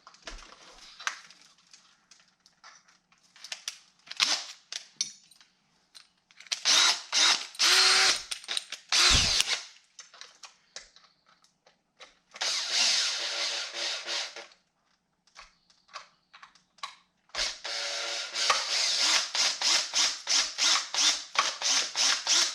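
Cordless power drill running in several bursts, with handling clicks between them: a steady run partway through, then a long run near the end that pulses rapidly at about three beats a second.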